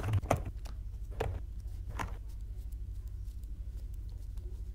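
Trading cards being handled on a table: a few soft clicks and taps in the first two seconds, over a steady low electrical hum.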